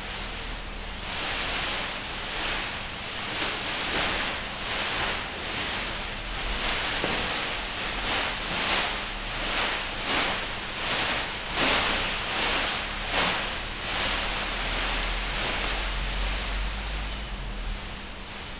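Large sheets of clear plastic sheeting rustling and crinkling as they billow, the noise swelling and fading in waves every second or so. A faint steady low hum runs underneath.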